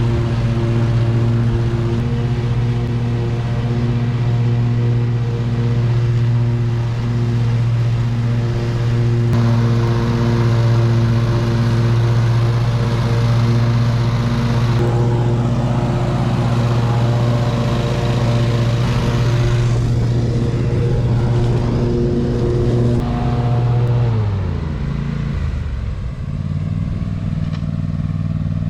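Riding lawn mower engine running steadily at high throttle. Near the end it is throttled down, its pitch falling over a couple of seconds and settling into a lower, steady run.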